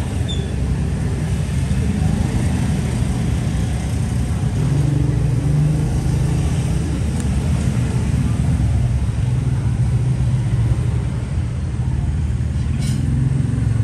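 Steady low rumble of road traffic, swelling slightly at times.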